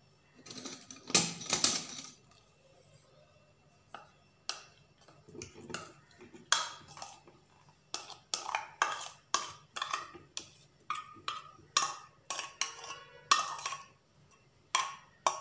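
A spoon scraping and knocking against a stainless steel bowl as soaked dried fruit is emptied out of it. A burst of noise comes in the first two seconds as the fruit slides out, then a string of short clinks and scrapes.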